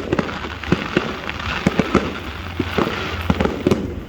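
Aerial fireworks display: an irregular string of bangs, several a second, over a continuous crackling.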